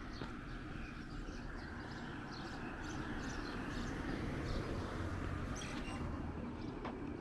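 Birds chirping in short, scattered calls over a steady low rumble of street traffic that swells a little after the middle.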